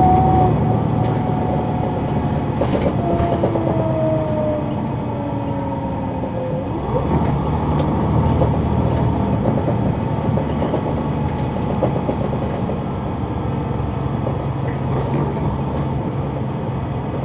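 A 2004 Neoplan AN459 articulated bus heard on board from the rear seats, its Caterpillar C9 diesel running with a steady low drone amid rattles and creaks from the body. A whine falls in pitch from about three to seven seconds in.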